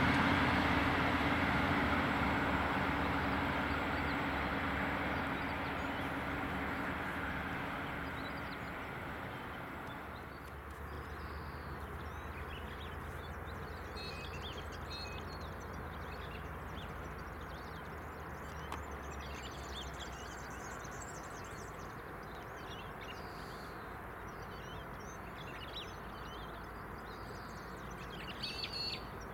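A departing diesel train's engine noise fading away over the first ten seconds or so. It leaves a standing diesel locomotive idling with a steady low hum, with birds chirping over it.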